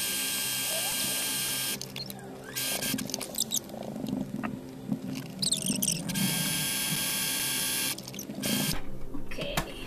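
Electric sewing machine stitching fabric in short runs: a steady run of about two seconds at the start and another of about two seconds some six seconds in, with clicks and rustling of the fabric being handled and repositioned between runs.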